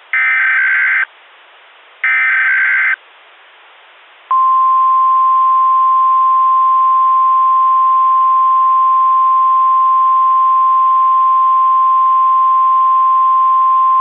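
Emergency Alert System alert tones on NOAA Weather Radio, the opening of a Required Monthly Test. First come two harsh, screeching SAME header data bursts, each about a second long and a second apart. Then, about four seconds in, the steady 1050 Hz warning alarm tone starts and holds.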